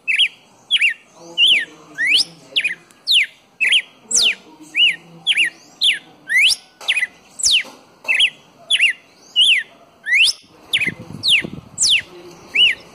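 Red-cowled cardinal (galo-de-campina) male singing: a steady run of loud, clear whistled notes, about one and a half a second. Sharp sweeping slurs alternate with short curling notes. This is the male's song for calling a female.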